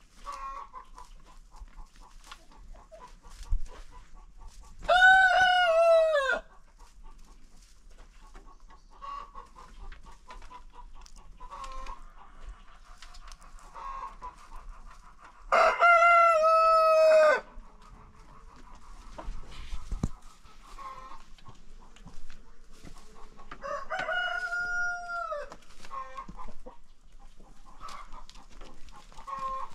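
Roosters crowing three times in turn, about ten seconds apart, each crow a long call that falls in pitch at its end. Hens cluck and chatter steadily in between.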